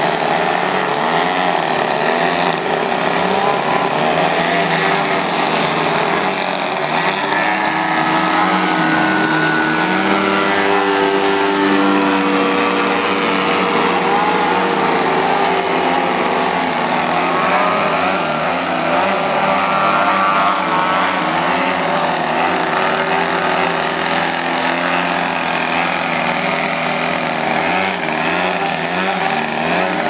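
Many large radio-controlled aerobatic airplanes hovering nose-up at once, their engines and propellers running together steadily, with many pitches wavering up and down as the throttles are worked to hold the hover.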